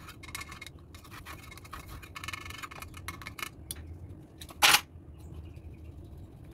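A small can of baking powder being handled: quick scratching and scraping as the lid is worked and a spoon scoops and levels the powder. One short, sharp knock comes a little past two-thirds of the way through, over a low steady hum.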